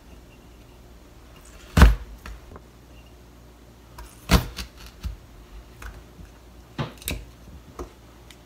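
A few sharp knocks and light taps of a small metal vegetable cutter and carrot slices against a plastic cutting board, as flower shapes are stamped out of carrot rounds. The loudest knock comes about two seconds in, with others near the middle and near the end.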